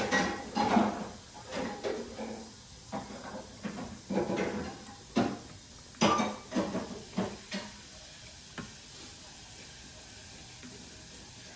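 Cutlery and dishes clinking and clattering: a string of short knocks and scrapes that thin out after about eight seconds.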